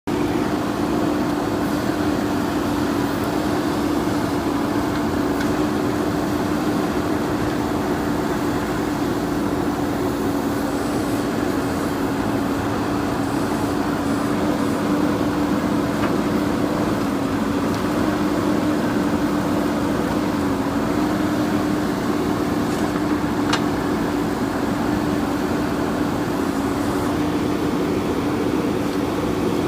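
JCB 3DX backhoe loader's diesel engine running steadily at an unchanging pitch.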